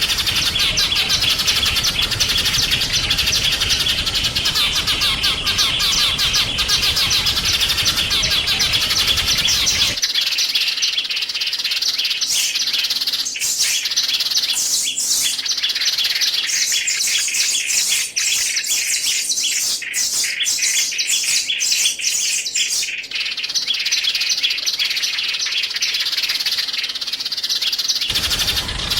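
Small songbirds chirping and twittering rapidly in high, dense calls. About ten seconds in, the recording switches to a cleaner one with sharper, more separated chirps, and the noisier recording returns near the end.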